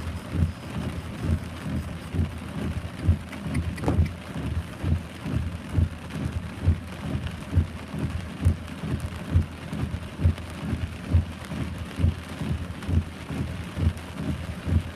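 Heavy rain falling, with a steady run of low thuds, about two a second, from drops landing close by.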